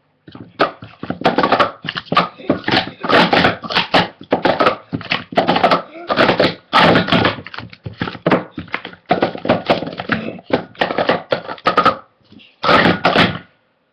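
Plastic sport-stacking cups clacking and clattering in a rapid, near-continuous run of clicks as they are stacked up into pyramids and down again in a timed stacking sequence. The clatter breaks off briefly near the end, then comes back in one last short burst.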